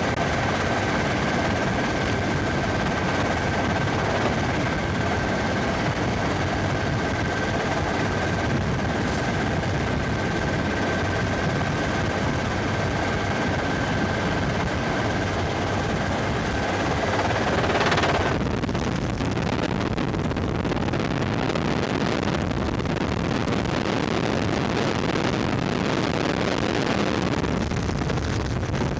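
Helicopter in flight heard from inside its cabin: a steady, loud rotor and engine noise, with a thin steady high tone that stops after a brief swell about 18 seconds in.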